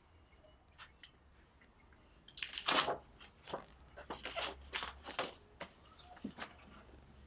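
Rustling and soft knocks as a person shifts about on a bed while handling a laptop, a cluster of short irregular sounds with the loudest about three seconds in, over a low steady room hum.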